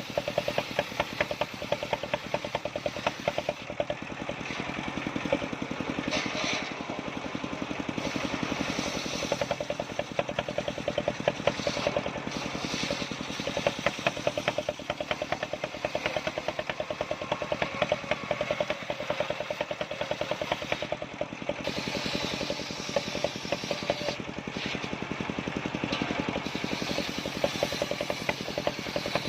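Engine of a mobile home-built circular sawmill running steadily, its firing heard as rapid, even pulses.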